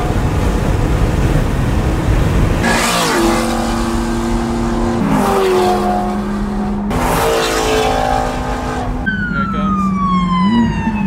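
Ferrari 458 Italia's naturally aspirated V8 heard from inside the cabin while driving, over road noise: a steady engine drone that shifts in pitch a couple of times, then a falling whine near the end.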